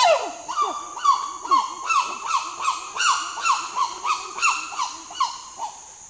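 Chimpanzee calling: a rapid rhythmic series of short hoots, each dropping in pitch, about three a second, growing fainter and stopping near the end.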